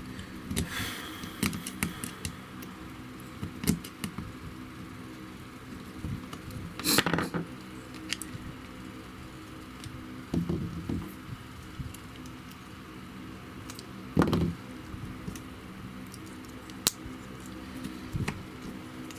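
Hands working on a mains plug and thin cable: scattered clicks, taps and short rustles of small parts and wire, the loudest about 7, 10 and 14 seconds in, over a steady low hum.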